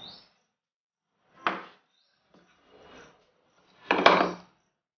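Handling sounds as wet gram-flour batter is scooped by hand into a brass sev press: a short sharp knock about a second and a half in, and a louder, longer rub or clatter near four seconds.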